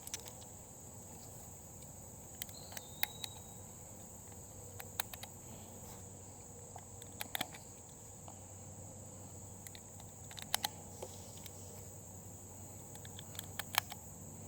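Steady high-pitched drone of crickets or other insects, with a few light clicks scattered through it every second or two, the sharpest near the end.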